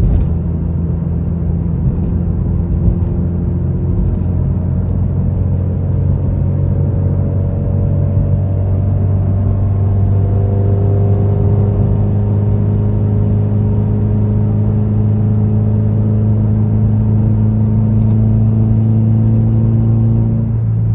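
Subaru WRX's turbocharged flat-four engine running steadily under light load while cruising, its pitch rising slowly as the car gains speed, heard from inside the cabin with road noise.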